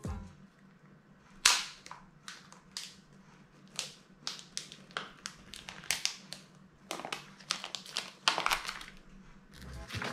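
An iPhone 12 box's pull-tab seal and clear plastic film being torn and peeled off, heard as an irregular string of sharp crackles and snaps. The loudest snap comes about a second and a half in, and a busier run of crinkling follows around seven to eight seconds in.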